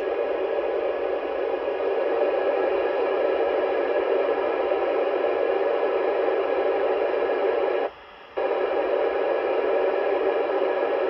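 Steady FM static from a ham radio receiver tuned to the ISS 70 cm downlink, with no station coming through; the hiss cuts out for about half a second around eight seconds in, then returns.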